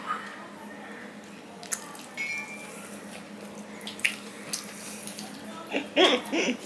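Quiet hand-eating sounds: fingers mixing wet rice and curry on a stainless steel plate, with a few light clinks of a spoon against steel dishes. A child's short laugh or voice comes near the end.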